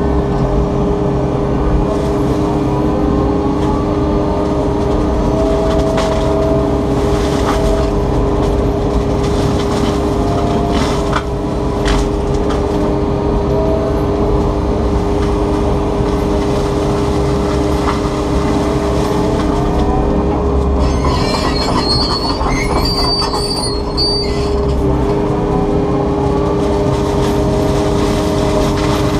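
Takeuchi TB290 excavator running an FAE hydraulic mulching head, a loud steady hum with whining tones that rise and fall as the drum chews through alders and brush. A harsher hiss breaks in for a few seconds about three quarters through.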